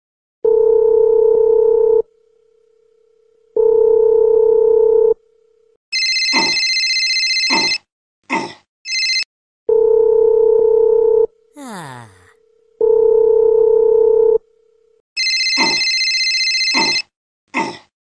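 Telephone calling tones: a steady low beep about a second and a half long, sounding four times, alternating twice with a shrill electronic phone ring. Short squeaky cartoon-voice blips fall between them, and a falling glide comes about twelve seconds in.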